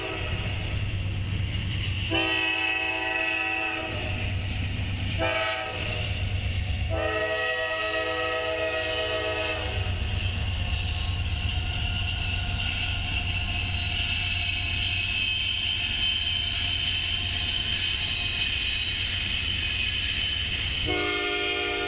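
Intermodal freight train rolling past with a steady low rumble and wheel noise, while a locomotive's multi-note air horn sounds the grade-crossing signal: a long blast, a short one and a long one, then another blast starting near the end.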